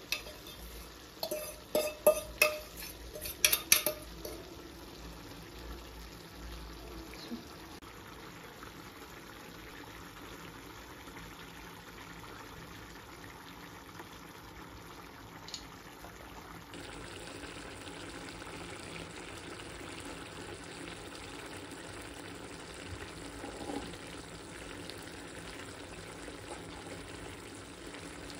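Vegetable stew sizzling and simmering steadily in a frying pan. In the first few seconds a metal spoon knocks and scrapes against an enamel pot as cooked lentils are scraped into the pan.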